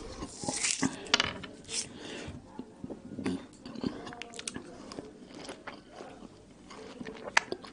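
Peeled mandarin pulled apart into segments by hand, a rustling tearing in the first two seconds, then a segment bitten and chewed with wet mouth clicks and one sharp click near the end.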